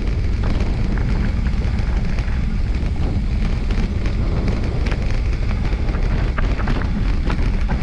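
A mountain bike rolling down a gravelly dirt trail, its knobby front tyre on loose stones, with frequent small clicks and rattles, under a steady low rumble of wind on the microphone.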